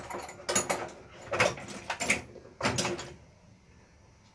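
Workshop handling noise: about four short scraping, sliding sounds in the first three seconds, like parts or tools being moved on a bench, then quiet.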